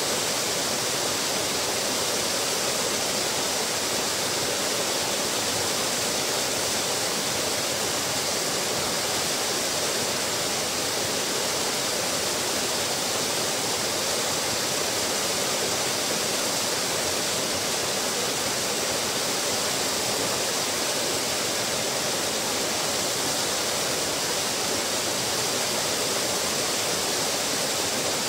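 Small waterfall pouring over a stone ledge into a pool: a steady, even splashing rush of falling water.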